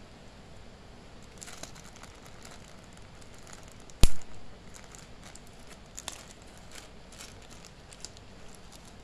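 Thin plastic packaging crinkling and rustling in the hands as a small zip-lock bag of phone-repair tools is pulled open, with one sharp, loud snap about four seconds in as the zip seal is pulled apart.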